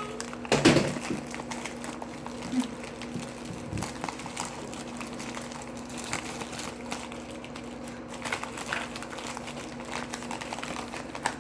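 Handling noises while unpacking silver bullion coins: scattered rustles, clicks and light knocks of packaging, with a sharper knock about half a second in, over a steady low hum.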